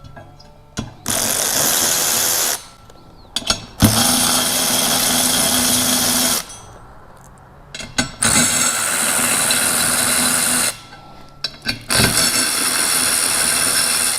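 A power tool with a socket spinning out the four bolts that hold a beadlock ring to the wheel: four separate runs of about two to three seconds each, with short clicks between them.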